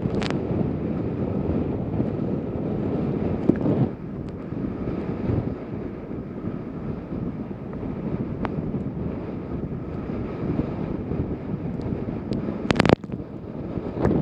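Wind buffeting the microphone aboard a sailboat under way: a steady rush of wind noise, with a few sharp clicks.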